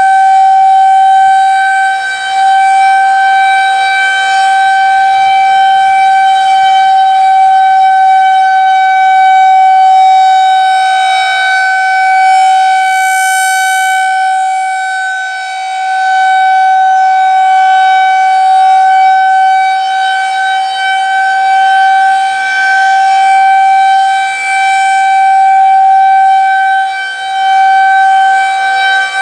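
Federal Signal 2001-130 rotating electromechanical warning siren sounding a steady single-pitch alert tone. The level swells and fades every several seconds as the rotating horn sweeps past and away.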